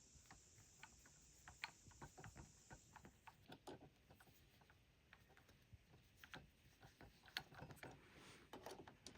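Faint, irregular small clicks and ticks of a Phillips screwdriver working a small screw out of a PS5's SSD expansion slot.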